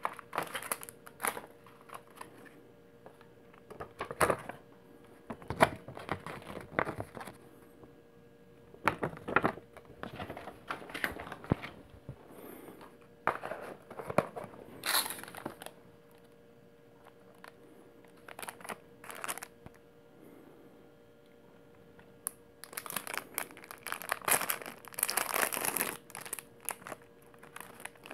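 Cardboard box of a Paqui One Chip Challenge being handled and opened, with scattered knocks and rustles. Near the end the foil pouch inside crinkles and tears open.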